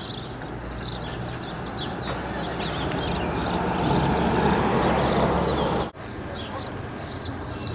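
Street ambience: a rushing traffic noise that builds over the first five seconds, with birds chirping. It cuts off abruptly about six seconds in, and a quieter stretch with a few short high chirps follows.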